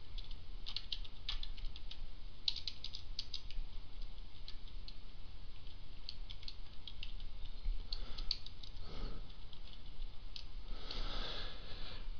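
Computer keyboard keys clicking in short irregular runs as a command is typed, over a low steady hum.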